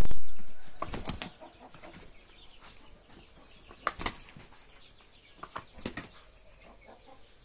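Indian gamefowl rooster beating its wings as it leaps and strikes at a person's leg: territorial aggression. There is a loud flurry at the very start, then short bursts of flapping about four and six seconds in.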